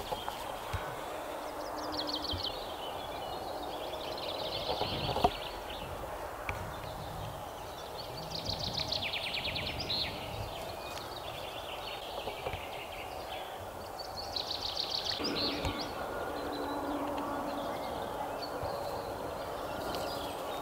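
Open-air ambience of a rural field: steady background noise with small birds singing in short, quick trills every few seconds, and a single sharp knock about five seconds in.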